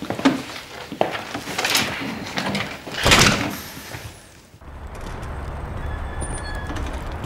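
A door being handled and shut, with several knocks and clicks, the loudest about three seconds in. From about four and a half seconds in, a steady low rumble of street traffic.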